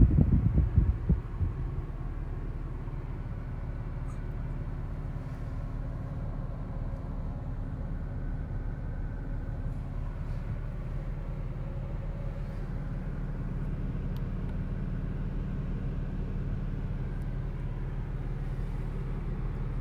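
2022 BMW X3 M Competition's twin-turbocharged 3.0-litre six-cylinder engine and running gear on the move: louder at the very start, settling within a second or two into a steady low rumble.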